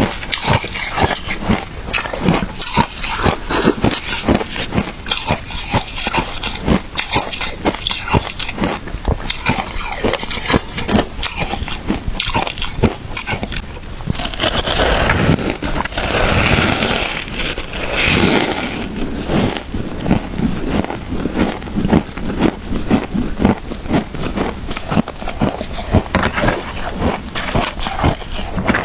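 Close-up crunching and chewing of shaved ice, many sharp, irregular crunches a second. About halfway through there is a denser stretch of grinding crunches.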